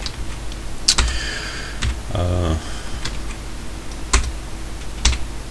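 A few sharp keystrokes on a computer keyboard as code is typed, with a short hummed "mm" from a man's voice about two seconds in.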